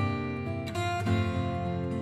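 Background music: strummed acoustic guitar, with chords changing about every half second.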